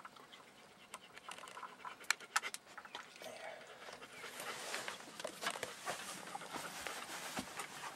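Faint clicks of fishing tackle being handled as a snap swivel is clipped onto a plastic planer bobber, about two seconds in. Then a soft rushing noise builds over the last few seconds as the rod is raised to cast.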